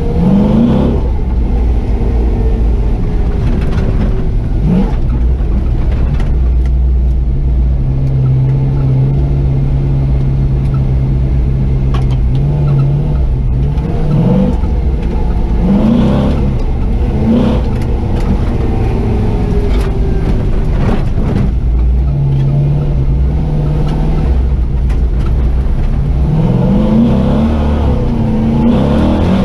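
LS-swapped Chevy 4x4 truck's 6.0 L V8 driving, its pitch rising several times as it accelerates through the gears of the SM465 manual transmission, with steady cruising stretches between.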